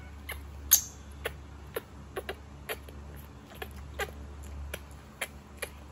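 Baby monkey making a string of short clicks and squeaks, about three a second, irregular, with a louder one a little under a second in.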